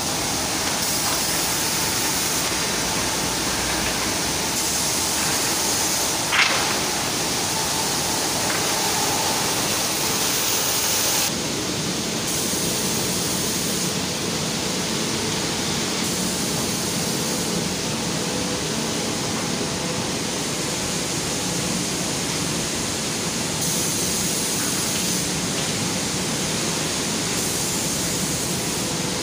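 Steady machinery noise of a wood-panel assembly conveyor line running: an even hiss with faint steady hums underneath, and a single sharp clack about six seconds in.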